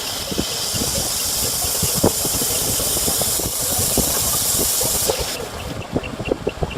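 A steady high-pitched hiss, like a jet of air or gas, that cuts off suddenly about five seconds in, over irregular workshop knocks and clatter.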